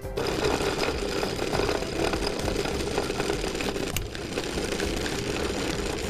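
Electric mixer grinder starts suddenly and runs steadily, grinding a thick mixture of cooked chana dal puran and rice-flour dough. Its sound dips briefly about four seconds in.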